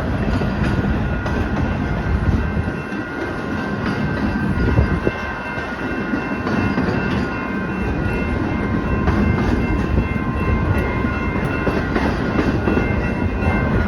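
Steady loud rumbling of a heavy vehicle passing close by, with several steady high whining tones held above it.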